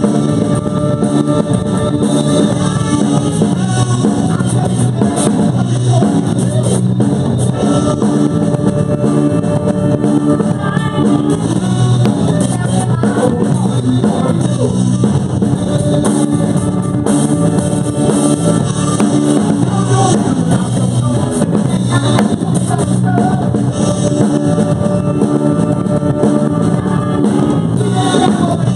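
Live rock band playing a song: electric guitar over a drum kit, with singing in places.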